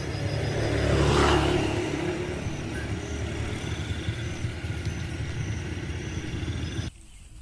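A motor vehicle's engine rumbling past, swelling to its loudest about a second in and then settling to a steady rumble, which cuts off abruptly near the end.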